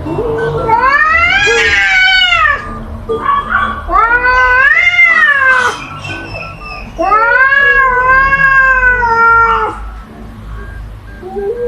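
Domestic cat caterwauling: three long, wavering yowls that rise and fall in pitch, each lasting two to three seconds, with a fourth beginning near the end. This is the drawn-out yowling of a cat facing a rival.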